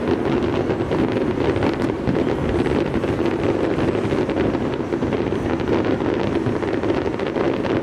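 Steady wind rushing over the microphone, with a dense fine crackle of fireworks running through it.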